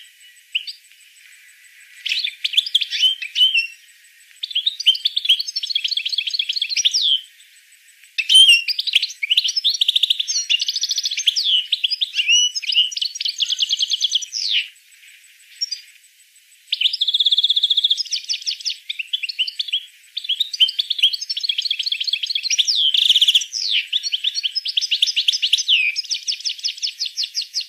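A small songbird singing a long song in phrases of rapid trills and quick repeated notes, with short pauses between phrases.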